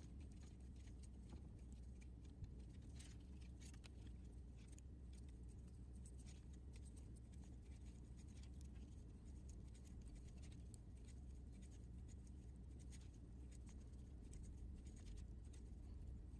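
Near silence: faint, irregular light clicks of circular knitting needles as stitches are knit, over a low steady room hum.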